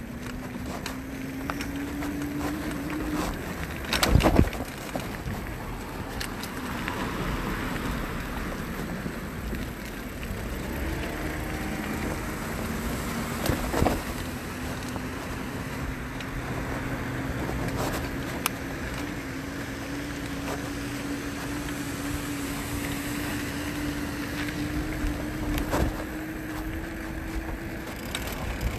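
An e-bike's electric motor whining steadily while riding, the whine slowly rising in pitch as the bike gathers speed, over road and wind noise. A loud knock about four seconds in, with smaller knocks later, as the bike jolts over bumps.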